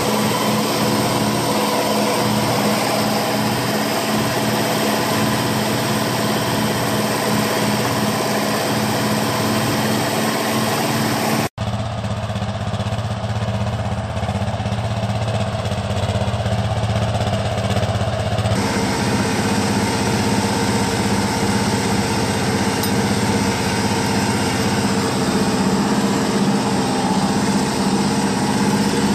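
International Harvester 706 tractor engine running steadily, its sludge-clogged fuel tank just cleaned and refitted. About a third of the way in the sound cuts out for an instant and turns deeper and duller for several seconds, then returns to its earlier tone.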